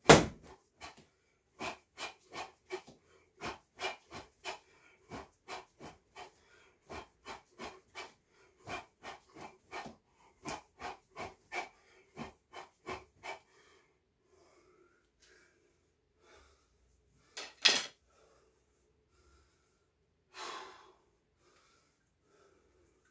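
A person shadowboxing, letting out a short sharp exhalation with each punch, about two a second, the first the loudest, stopping after about thirteen seconds. Two louder single breaths or knocks come later, one a few seconds after the strikes stop and one near the end.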